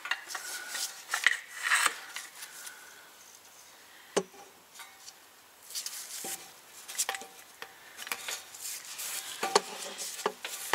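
Plastic fluid bottle and gloved hands handled against the transfer case fill hole while fluid is squeezed in, making irregular crinkling, rustling and clicks. The loudest handling comes in the first two seconds and again near the end, with one sharp click about four seconds in.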